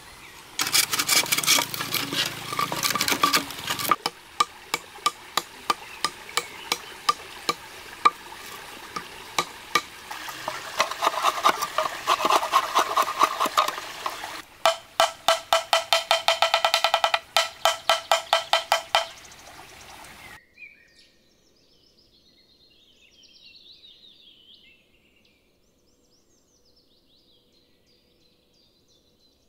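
Green bamboo being sawn and cut with a knife: a long run of sharp, hollow knocks and strokes, about two a second, with a faster run of ringing knocks near the middle. It then stops suddenly, leaving faint birdsong.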